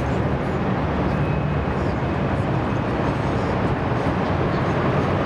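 Eight-wheeled armoured personnel carriers driving past in a column: a loud, steady low engine drone with no let-up.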